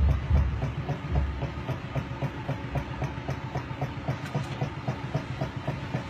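Antique non-electric table fan running, its mechanism clicking rapidly and evenly at about seven clicks a second as the blades spin. A couple of low knocks come in the first second or so.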